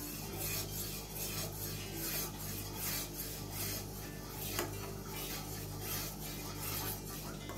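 Metal spoon stirring just-boiled milk in a stainless steel saucepan, scraping against the pan in a string of soft, irregular strokes.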